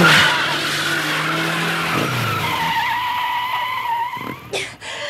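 Car tyres screeching in a skid: a loud start, then a long, nearly steady squeal, giving way near the end to a few short rushes of noise.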